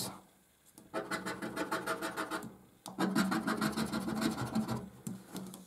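Scratching the coating off a paper scratchcard with quick back-and-forth strokes: two runs of about a second and a half each, with a short pause between.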